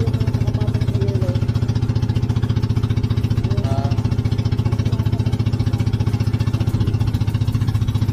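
Motorized outrigger boat's engine running steadily under way, with a fast, even pulsing.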